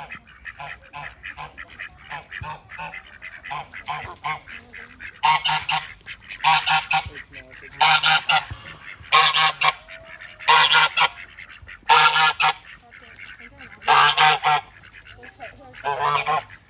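Chinese goose honking loudly and repeatedly, eight loud honks spaced a second or two apart, after about five seconds of quicker, softer calls.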